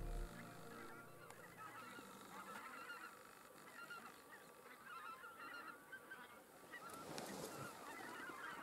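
A flock of wild geese calling in flight: many short, overlapping honks, faint.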